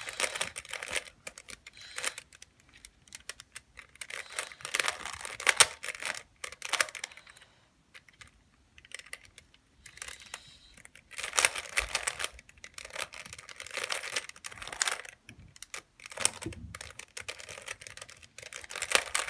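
A 3x3 Rubik's cube being turned by hand while it is solved: quick runs of plastic clicking and clacking as the layers turn, broken by short pauses, about 8 and 16 seconds in.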